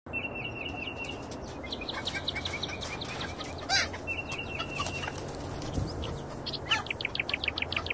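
Chickens clucking outdoors, with one louder call a little before halfway, while small birds chirp and trill in quick repeated notes.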